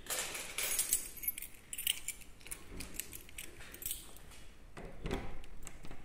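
A bunch of keys jangling and clinking in the hand as one is fitted into a door lock, with a duller knock about five seconds in.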